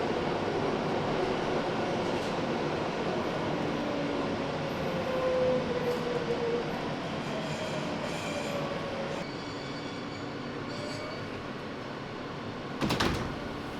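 NYC subway L train running, heard from inside a moving car: a steady rumble with the wheels squealing, one squeal gliding down in pitch about four to six seconds in. A sharp clack comes near the end.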